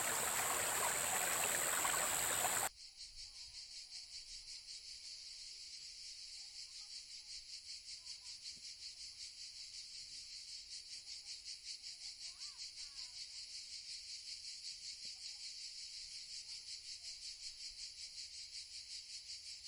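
Rushing water for about the first three seconds, then a sudden cut to a steady, rapidly pulsing insect chirr with a few faint bird chirps.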